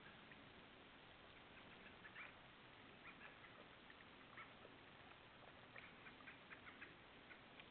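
Black bears lapping water: faint soft clicks, scattered at first, then a quick run of them about six seconds in, over the steady hiss of a trail camera's microphone.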